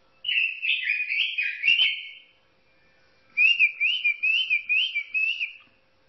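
A robin singing two phrases of clear, whistled song. The first runs for about two seconds, and the second, starting about halfway through, is a quick run of rising-and-falling notes.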